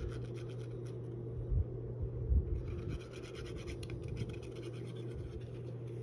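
Cardstock being handled: fingers scratching and rubbing on paper as liquid glue is applied to a tab and the pieces are pressed together, with a couple of soft bumps and a steady low hum underneath.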